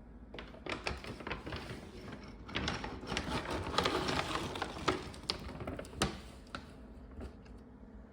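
A Labradoodle eating, a rapid run of crunching and clicking chews that is busiest in the middle and tails off near the end.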